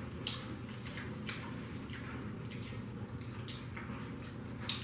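Chewing and wet mouth sounds of people eating fried chicken and Doritos with dip: irregular small clicks and crunches.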